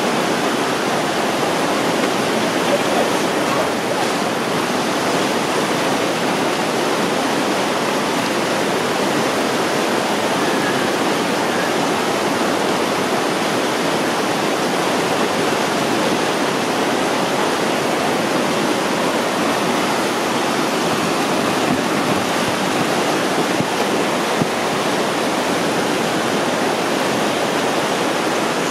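Whitewater rapids rushing steadily over a low drop in a slalom channel.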